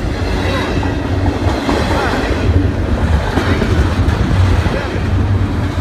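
Double-stack intermodal well cars of a Norfolk Southern freight train rolling past close by, their steel wheels running on the rails in a steady low noise.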